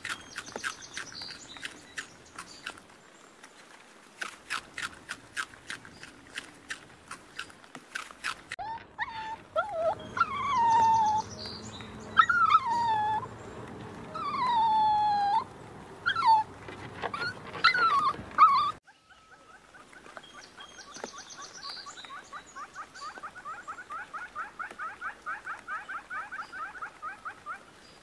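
Rabbits chewing greens, with crisp irregular clicks. Then a series of loud whining animal calls, each falling in pitch, followed by a fast, even chattering trill.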